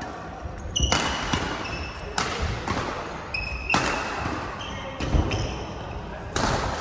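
Badminton rally: rackets striking the shuttlecock in sharp smacks about a second apart, echoing in a large hall, with short high squeaks of shoes on the court floor between the hits.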